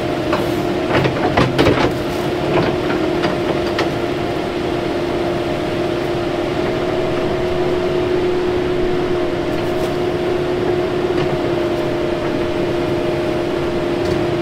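Excavator running steadily with a constant hum while its bucket digs in frozen ground, with a cluster of scrapes and knocks from soil and stones in the first few seconds.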